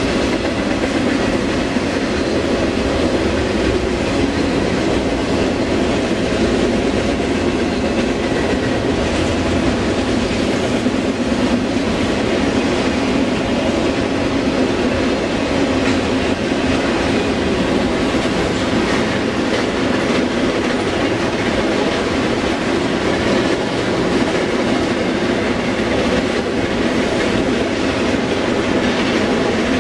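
Freight train cars rolling past without a break, a steady rumble of wheels on rail with clickety-clack. First multilevel autorack cars, then piggyback trailers on flatcars near the end.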